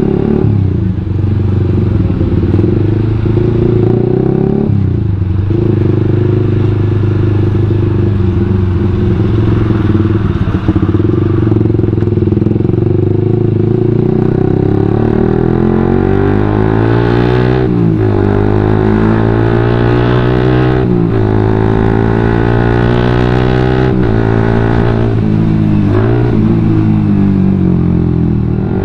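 Suzuki GSX-R150's single-cylinder engine running through a WRX GP5K1 aftermarket full-system exhaust. It runs steadily at low speed at first, then revs up through the gears from about halfway: the pitch climbs and drops back at three upshifts.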